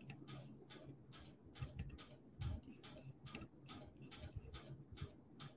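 Faint rapid clicking, about four clicks a second, fairly even, over a low steady hum.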